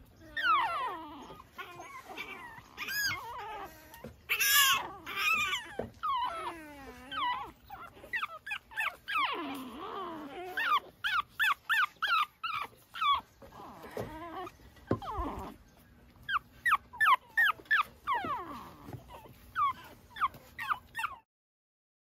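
Pekingese puppies whimpering and yipping: many short high-pitched cries, each sliding down in pitch, come in quick runs, then cut off suddenly near the end.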